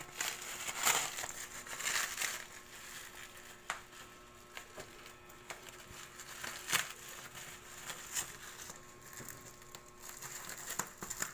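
Plastic bubble wrap around a parcel crinkling and crackling as hands pull at it and scissors cut into it, in irregular bursts that are busier in the first couple of seconds and again near the end.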